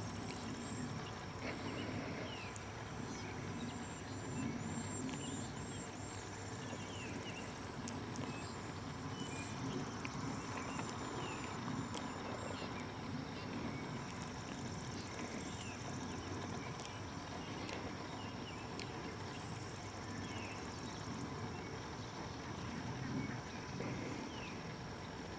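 Outdoor background with a steady low rumble, under faint, very high thin calls of cedar waxwings and scattered short, falling chirps.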